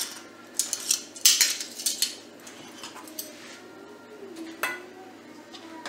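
Metal kitchen tongs clinking and knocking as fried plantain fritters are handled on a plate. There is a quick cluster of sharp clinks about a second in and a single knock near the end.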